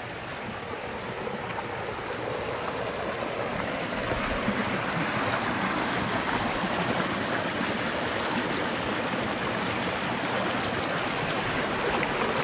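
Stream of running water rushing steadily, growing louder over the first few seconds.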